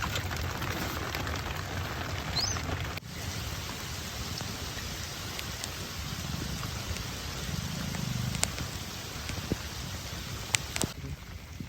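Heavy rain falling steadily, with scattered sharp clicks of individual drops striking close by.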